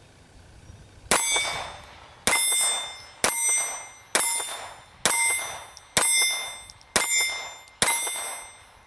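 Hi-Standard Model GB .22 Long Rifle semi-automatic pistol firing eight shots at about one a second, each shot followed by a ringing tone that fades away. The pistol cycles through the string without a stoppage while feeding from an aftermarket magazine.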